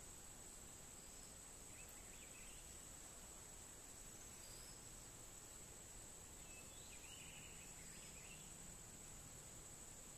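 Near silence: a faint, steady, high-pitched insect drone, with a few faint chirps over it.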